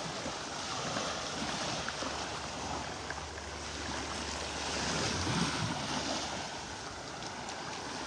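Gentle surf: small Gulf of Mexico waves washing on the shore in a soft, steady wash that swells and eases, loudest about five seconds in.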